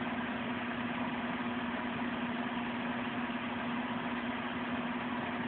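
A steady mechanical hum with one strong constant low tone over an even hiss, unchanging throughout.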